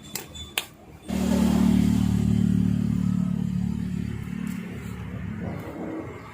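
A motor engine running, starting suddenly about a second in after a single click, then slowly fading.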